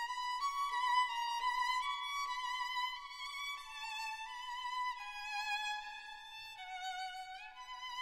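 Background music: a single violin playing a slow melody of held notes with vibrato, sliding up into one note near the end.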